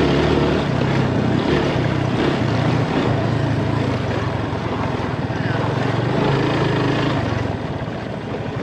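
Yamaha motorcycle engine running under throttle while riding over a dirt motocross track, heard from onboard with a steady rush of noise. The engine note eases off and drops in level near the end as the bike slows.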